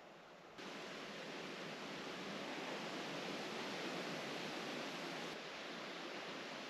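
Steady outdoor rushing noise with no distinct events, jumping up in level about half a second in and easing slightly about five seconds in.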